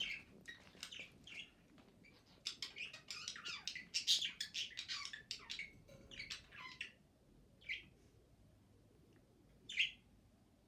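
Shih Tzu puppy at play with plush toys: a quick run of short, high squeaks and chirps, some sliding down in pitch, which thins out after about seven seconds to two single squeaks near the end.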